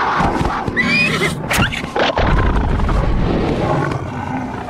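Cartoon animal sound effects: a horse whinnying about a second in, then low growling from a beast, over background music.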